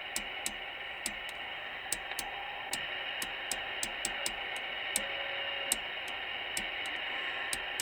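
TriStar 790DX CB radio on upper sideband, its speaker hissing with receiver static, while its channel selector is clicked through channels about two or three clicks a second. A brief steady whistle is heard around the middle.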